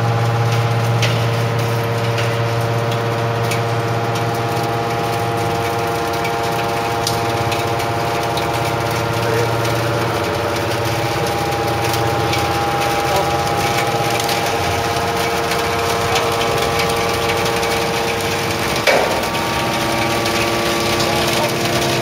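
Hydraulic scrap baler running, its motor and hydraulic pump giving a steady, loud hum made of several even tones. There is a single sharp clank about nineteen seconds in.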